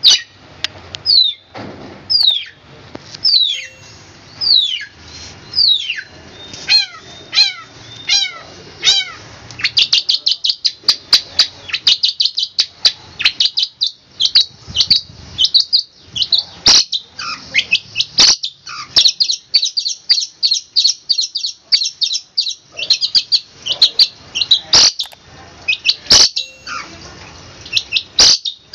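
Long-tailed shrike (cendet) singing. It starts with a series of clear whistled notes, each falling in pitch, about one a second. From about ten seconds in it breaks into a fast, dense volley of short high notes, the rapid-fire 'tembakan' phrases.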